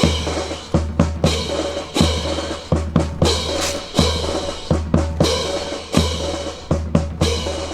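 A drill team's rifles being slapped, spun and grounded, along with boot stamps, in quick precise strokes. The sharp knocks come about one to three a second at an uneven beat, each trailed by a short low boom.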